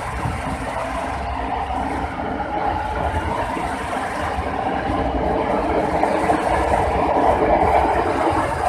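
Four-car LRT-2 light rail train pulling out and accelerating past, a rising whine over the first few seconds above a growing rumble of wheels on rail. It gets louder toward the end as the last car goes by.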